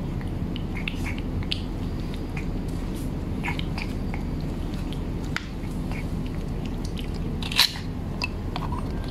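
An orange-and-white cat chewing and licking wet cat food from a plastic tray, with small wet clicks and smacks. One sharper click comes about seven and a half seconds in. A steady low hum runs underneath.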